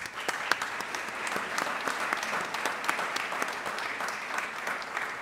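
Seated audience applauding: many hands clapping together in a steady, dense patter.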